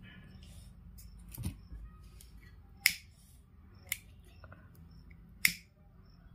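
Four sharp, separate clicks a second or so apart over a faint steady background, from scissors snipping the cut ends of nylon macrame cord and a pocket lighter being handled to seal them.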